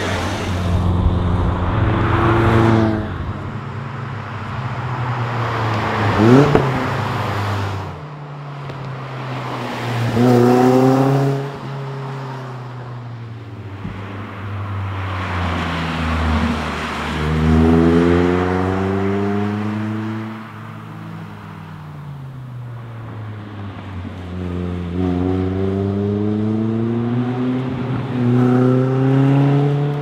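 Lotus Elise sports car's four-cylinder engine, pulled hard through the gears. Its pitch climbs again and again and drops at each gearchange or lift, swelling loud as the car drives past and fading as it goes away.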